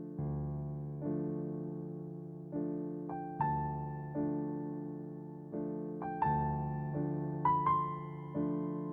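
Background music played on piano or electric piano: slow, soft chords struck about once a second, with a few higher melody notes over them.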